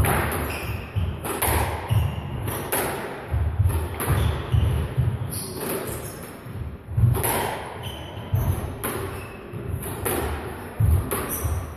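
Squash rally: a rubber squash ball struck by rackets and smacking off the court walls, sharp knocks about once a second at an uneven pace, with short squeaks of shoes on the wooden floor in between.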